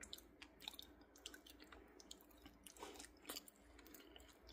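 A person chewing a ripe fig close to the microphone: faint, scattered small mouth clicks.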